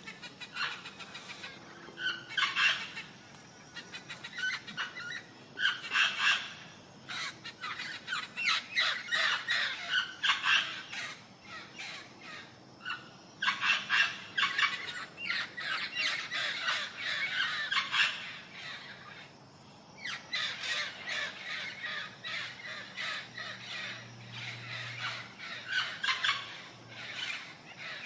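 Birds calling: many short, harsh calls in rapid clustered runs, pausing briefly a few times.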